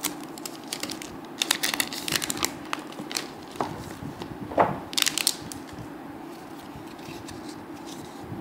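A trading-card booster pack's wrapper crinkling and tearing open in a run of crackly bursts over the first five seconds or so, then only a steady low hum.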